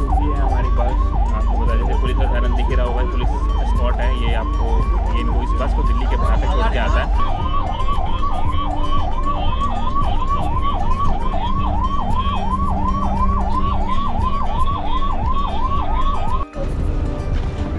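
Police siren wailing in a fast, rapid up-and-down yelp, about two or three sweeps a second, over the low rumble of the moving bus. It cuts off near the end.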